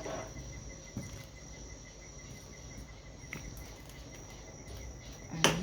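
Insects chirping: a steady, high, pulsing trill. There is a faint click about a second in and a sharper knock near the end.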